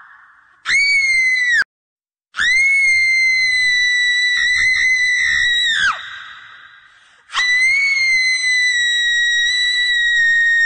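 Shrill, high-pitched screams of a horror sound effect: three held cries, each at a nearly steady pitch that drops sharply at the end, with an echoing tail. The first is short and is cut off abruptly into dead silence; the second lasts about three and a half seconds; the third starts about seven seconds in and is still going at the end.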